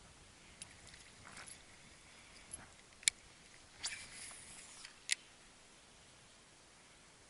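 Fishing rod and reel being worked while retrieving a lure: a few sharp clicks and short rustles over about five seconds, the loudest clicks about three and five seconds in.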